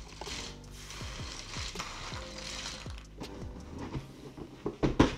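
Large cardboard pieces of a Cobble Hill 500-piece jigsaw puzzle being stirred and shuffled by hand on a table: a dry rustling clatter. There are a few sharp knocks near the end.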